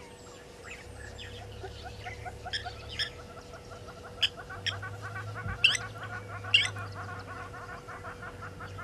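Blacksmith lapwings calling: sharp, clinking calls, the loudest three or four in the middle, over a fast, steady run of short chirping notes.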